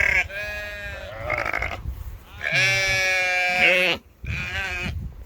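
Sheep bleating, several calls in a row, the longest and loudest about halfway through, over wind buffeting the microphone.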